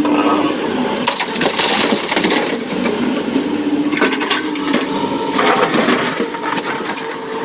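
Excavator's diesel engine running steadily while loads of rock crash and clatter into a dump truck's steel bed in three spells of falling stone.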